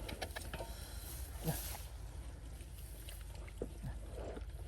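Splashing and sloshing in shallow muddy water, with scattered small clicks and knocks.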